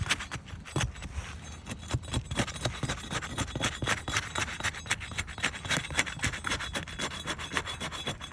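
An asphalt roof shingle being worked loose and separated from the shingle beneath it: rapid, uneven scraping and rubbing strokes throughout.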